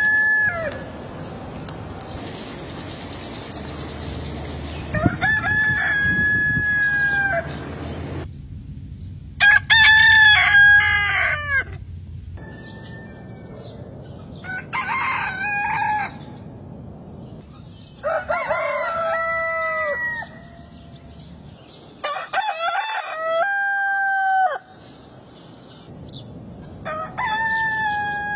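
Roosters crowing: six separate crows, each two to three seconds long and spaced about four to five seconds apart. The pitch and the background change from one crow to the next.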